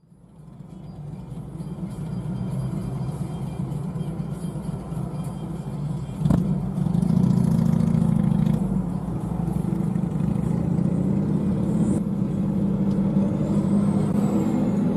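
Steady road and engine drone inside a moving car, fading in at the start, with a single sharp knock about six seconds in, after which the drone is louder.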